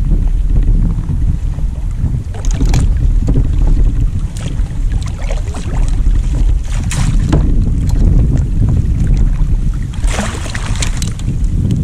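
Wind buffeting the microphone in a steady low rumble, with scattered splashes of water as a landing net holding a fish is dipped and worked at the surface, and a longer splash and trickle near the end.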